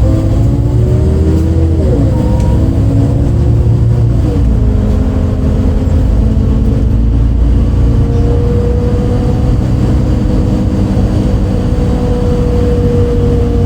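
MAN D0836 diesel engine of a MAN Lion's City A37 bus, heard from inside, pulling under load. Its pitch climbs and drops back at about two seconds and again at about four and a half seconds as the ZF Ecomat automatic shifts up, then it holds a nearly steady note. This is the bus the uploader says had an unusually odd engine sound that day.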